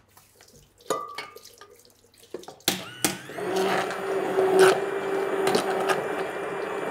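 Stick blender switched on about two and a half seconds in, spinning up and then running steadily with a constant motor hum as it churns through a pot of liquid Parmesan sauce.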